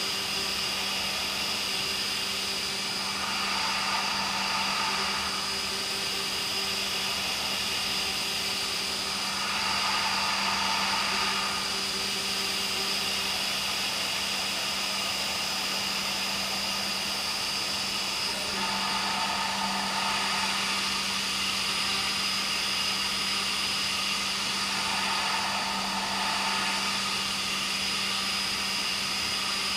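CNC machining centre (CB Ferrari GT2000) milling H13 tool steel: a steady machine hum with a constant high whine, and cutting noise that swells and fades every few seconds as the tool works the part.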